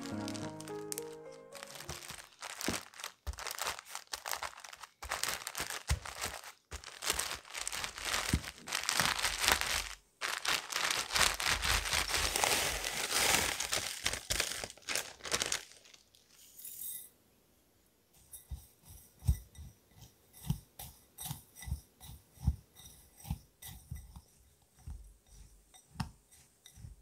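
Chocolate chip cookies being crushed inside a plastic zipper bag, a dense crunching and crinkling of crumbs and plastic through the first half. In the second half a silicone spatula stirs the crumbs and chopped almonds in a glass bowl, giving soft separate scrapes and taps about one or two a second.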